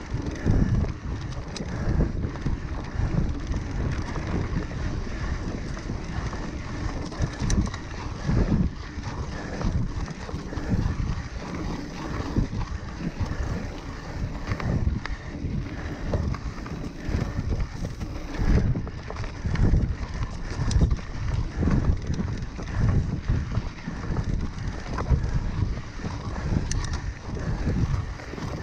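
Wind buffeting the action camera's microphone over the rumble and rattle of a mountain bike rolling on a dirt singletrack, with a few sharp clicks and knocks along the way.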